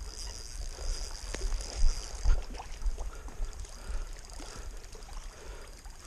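Wind buffeting the microphone, with a steady hiss and a few short knocks and taps about two seconds in.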